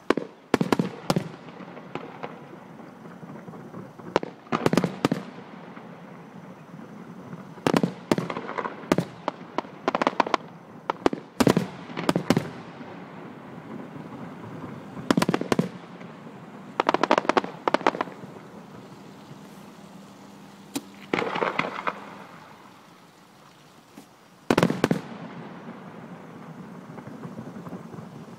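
Aerial firework shells bursting overhead: sharp bangs at irregular intervals, some in quick runs of two or three, some trailing off in a spray of crackling.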